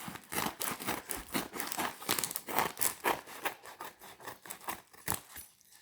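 Paper packaging crinkling and rustling in quick, irregular crackles as a parcel is opened by hand, going quieter near the end.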